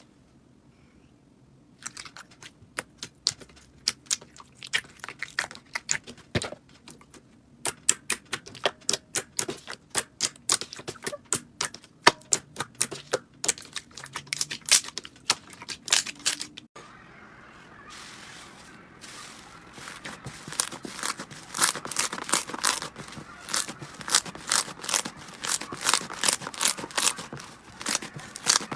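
Slime being squeezed and poked by hand, giving rapid runs of sticky clicks and pops. There is a short break a little past halfway, after which the clicking goes on over a soft hiss.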